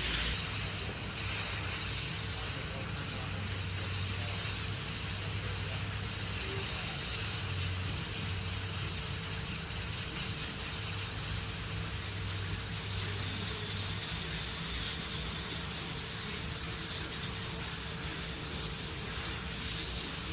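Steady hiss of compressed air with a low hum underneath, holding level throughout.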